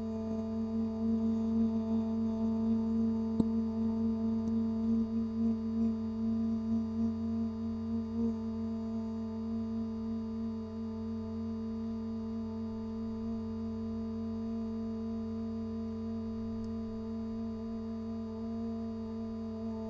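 A human voice holding one long, steady note, sung with pursed lips, as in a note-holding challenge. It wavers slightly in the first eight seconds, then goes on softer and even.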